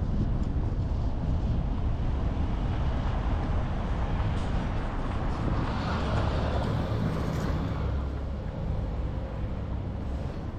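Steady low rumble of a car driving on the road, engine and tyre noise with wind on the microphone, with a hissing swell about six seconds in that fades again by about eight seconds.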